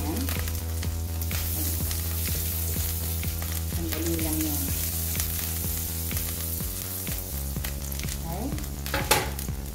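Freshly pressed garlic sizzling and frying in hot oil in a nonstick frying pan, stirred with a wooden spatula, with a sharp knock near the end.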